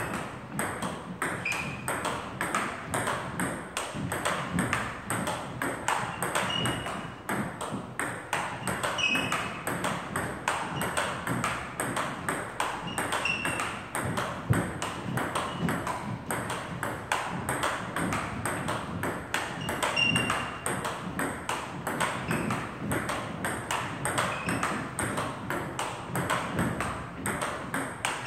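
Table tennis ball in a fast, continuous rally: quick, even clicks of the ball off the paddles and bounces on the table, several a second, with an occasional short squeak.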